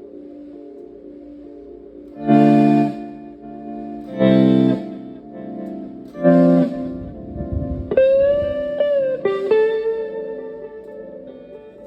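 Fender Stratocaster electric guitar played through an echo pedal into a Fender Twin Reverb-style amp. Three chords are struck about two seconds apart, then a single note is bent up about eight seconds in, released a second later, and left ringing out with echo trails.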